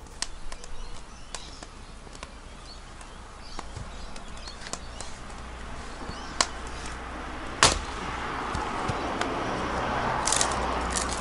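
A hatchet chopping firewood: two sharp strikes a little over a second apart past the middle, then split pieces of wood knocking together as they are gathered up. Scattered small clicks and a rising hiss sit behind.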